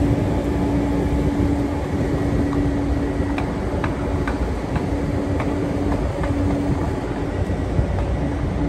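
Steady outdoor city rumble with a constant low hum running through it, and a few faint ticks around the middle.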